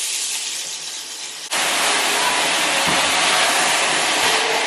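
Sliced bell peppers and leeks sizzling in hot oil in an enamelled cast-iron pan. The sizzle grows abruptly louder about a second and a half in.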